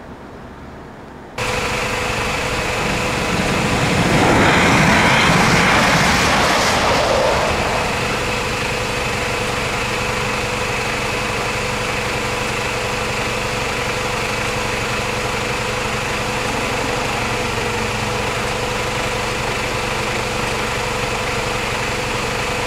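A motor engine idling steadily, with a few fixed pitches. Between about four and eight seconds in, a louder rushing sound swells and fades over it. The level jumps suddenly a little over a second in.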